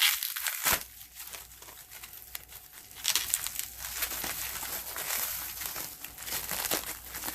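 Plastic packaging wrap being crinkled and pulled off by hand, a dense crackling that grows busier about three seconds in.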